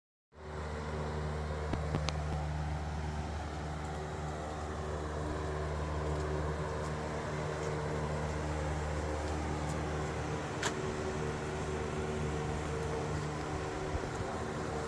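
Constant low mechanical hum from a machine running steadily at one pitch, with a couple of faint clicks.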